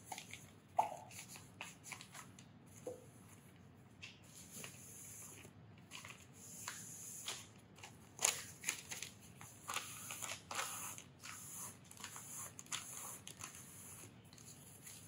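Sheets of newsprint rustling and crinkling as they are rubbed over an inked copper etching plate to wipe off excess ink, in a faint run of short, uneven rustles.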